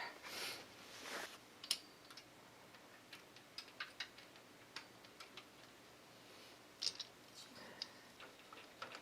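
Faint, scattered small clicks and light rustling of small computer hardware parts being handled, irregular and a second or more apart.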